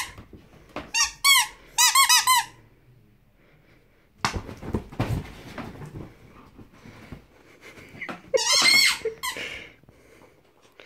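Rubber squeaky ball toy squeaking in quick runs of short squeaks as a dog bites down on it: a run near the start, another about eight seconds in. In between, a stretch of rustling as the dog shifts about on the duvet.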